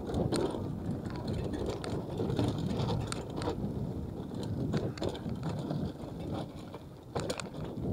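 Mountain bike rolling along a dirt trail: the rear hub's freewheel ratchet clicking, over a steady tyre rumble, with a few sharp knocks and rattles from the bike.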